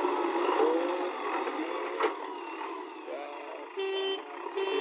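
Backhoe loader's engine running, with its reversing alarm starting to beep near the end: two steady beeps less than a second apart.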